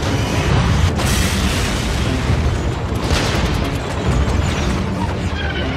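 Dense, continuous rumble of booms and explosions from naval battle footage, with swells of rushing noise about a second in and again about three seconds in, mixed with music.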